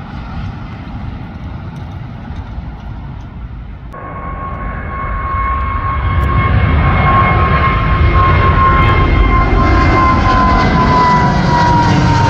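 Jet airliner flying low overhead: a low rumble grows much louder from about four seconds in, with a steady high engine whine that drops slightly in pitch near the end as it passes.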